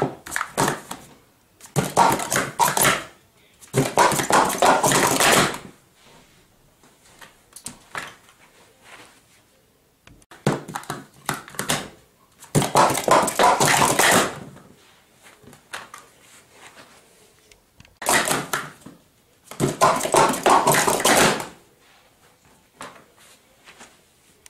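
Plastic Speed Stacks sport-stacking cups clattering on a stacking mat as they are stacked up and down at speed. The sound comes in several rapid runs of clatter, each a second or two long, with pauses between.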